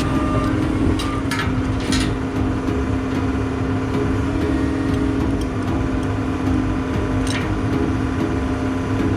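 Backhoe engine running steadily under load, with a held hum and low rumble, and a few short sharp knocks about a second and a half in, at two seconds and past seven seconds.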